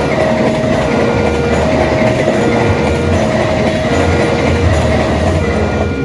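Passenger train passing over a level crossing, with the crossing's electronic alarm sounding over it: two notes, low then high, alternating steadily, each held about three-quarters of a second.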